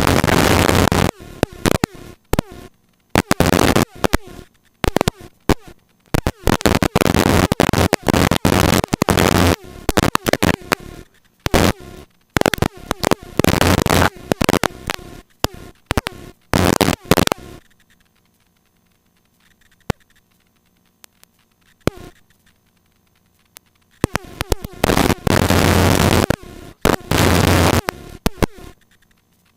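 Helicopter cabin noise heard through the intercom in choppy bursts that cut in and out abruptly, with a longer stretch of near silence from about 18 to 24 seconds in.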